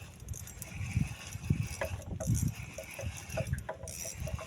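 Fishing reel being wound in: a run of short mechanical clicks among irregular dull knocks.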